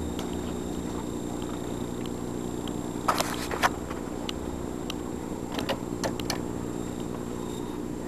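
A steady low mechanical hum. A cluster of sharp clicks or knocks comes about three seconds in, and another group about six seconds in.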